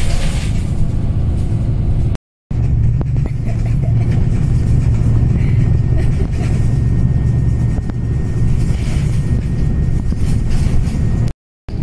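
Steady low drone of a coach's engine and road noise heard from inside the moving bus. The sound drops out completely twice for a moment, about two seconds in and near the end.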